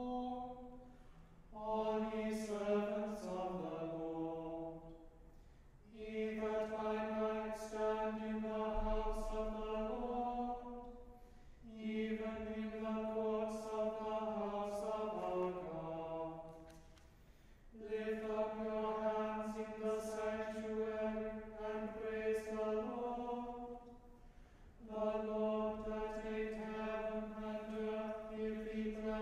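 Small men's choir singing plainchant in unison, in long phrases with long held notes, each phrase ending in a short pause before the next.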